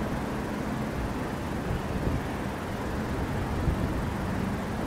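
Steady outdoor background rumble of distant traffic, with wind noise on the microphone.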